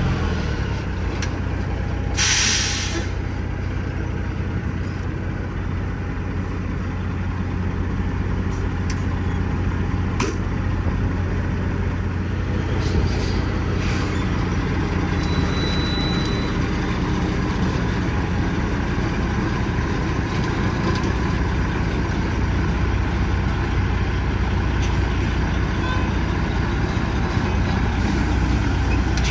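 Diesel engine of a semi truck hauling a loaded dump trailer, idling steadily. About two seconds in, a short hiss of air from the truck's air brakes.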